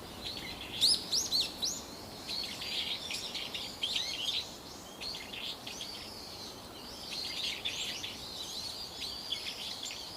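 Birds chirping: a dense run of short, high, arching chirps, loudest in a quick series about a second in, then many softer overlapping chirps.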